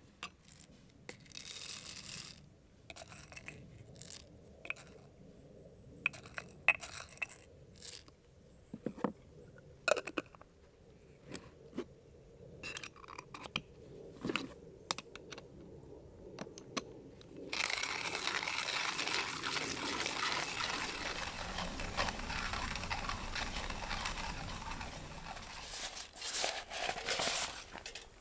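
Camp gear being handled: scattered clicks, light knocks and crinkling rustles. About two-thirds of the way in, a steady hiss starts suddenly and runs for several seconds.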